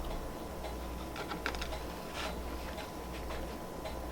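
Faint, irregular small clicks and smacks of a mouth chewing donut.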